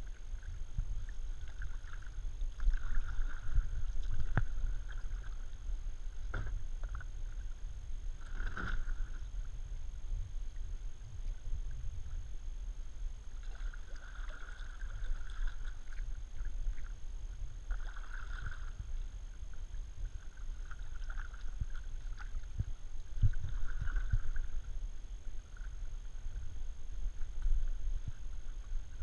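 Kayak paddle strokes: the blades dip and splash in the creek water every few seconds at an uneven pace, with a few sharp knocks, over a steady low rumble.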